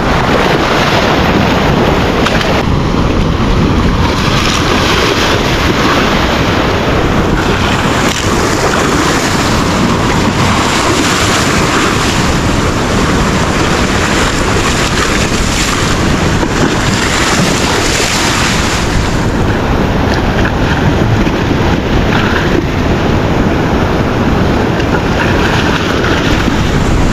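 High-tide ocean surf washing and foaming against the foot of an eroded concrete seawall: a continuous loud rush of breaking water, fuller from about three seconds in until near twenty seconds. Wind buffets the microphone throughout.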